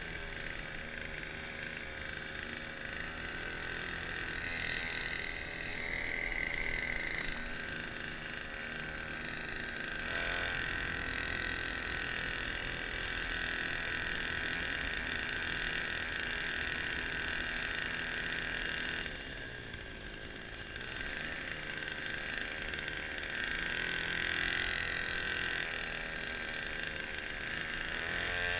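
The kayak's small motor running steadily with a high, even whine, easing off briefly about two-thirds of the way through.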